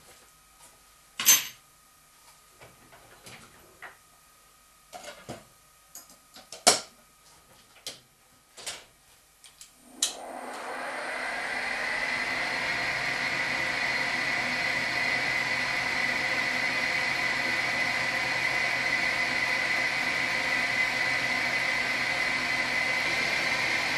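A few sharp knocks and clicks, then from about ten seconds in the steady running of a Schaublin SV-51 milling machine at 120 rpm under power feed, as a 17 mm twist drill bores through a steel puck, with a steady high whine.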